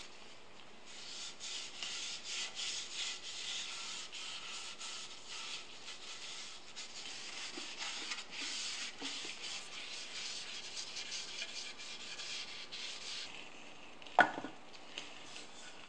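A cloth rag rubbing finish onto a walnut box in quick repeated wiping strokes. Near the end, a single sharp knock as the box is set back down on the wooden bench.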